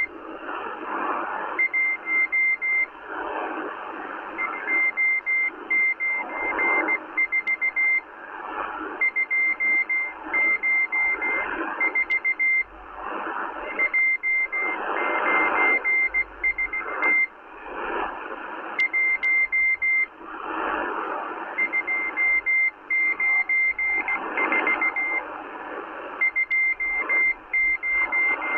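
Morse code from the Russian M12 spy station on 14451 kHz, received on a Kenwood R-1000 shortwave receiver: a steady high beep keyed in groups of quick dots and dashes with short pauses between them, over continuous rising and falling shortwave static.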